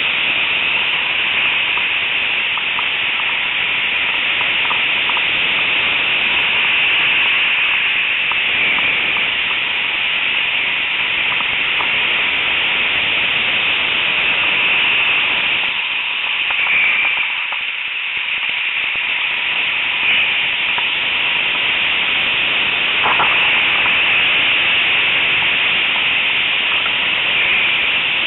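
Steady loud hiss of breaking surf and strong wind on a helmet-mounted camera, with faint scattered crackles; it eases briefly a little past halfway.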